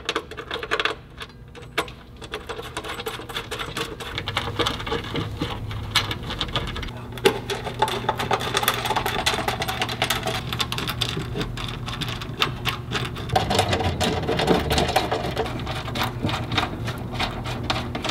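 A few light metal clicks, then a small power tool running with rapid clicking, driving in the bolts that hold the step-bar mounting brackets to the truck's rocker panel.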